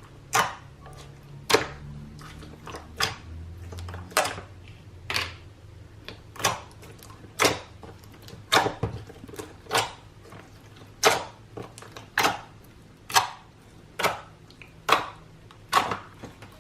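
Large mass of mixed slime being worked by hand, giving sharp pops and clicks about once a second, sometimes two close together.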